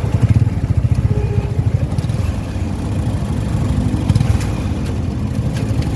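Motorcycle tricycle engine running steadily under way with a fast, pulsing low rumble, its pitch rising a little about halfway through as it speeds up.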